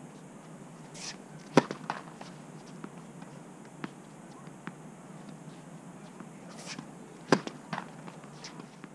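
Tennis racket striking the ball on serves: two sharp pops about six seconds apart, each followed by a softer knock, with a few faint ball bounces on the hard court in between.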